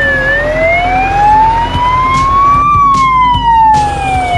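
Fire truck siren sounding a slow wail: the pitch bottoms out just after the start, rises steadily for about two and a half seconds, then falls again.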